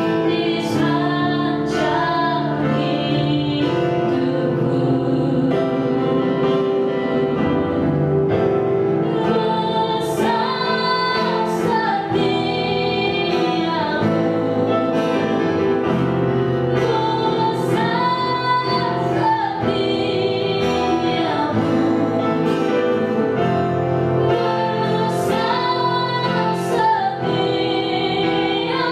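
A woman singing a slow worship song into a microphone, holding long notes with vibrato, over keyboard and acoustic guitar accompaniment.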